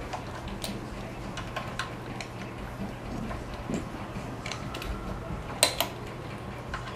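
Light, irregular clicks of a hand tool turning a hex bolt on the wheel mounting bracket of a Ninebot Mini self-balancing scooter, with two sharper clicks near the end, over a low steady hum.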